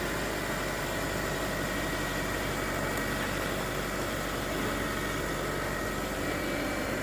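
Nissan Altima's engine idling steadily, just brought back to life with a jump pack after its battery went dead.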